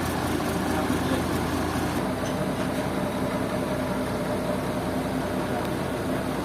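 Heavy sawmill machinery engine running steadily, with a low hum that shifts slightly about two seconds in.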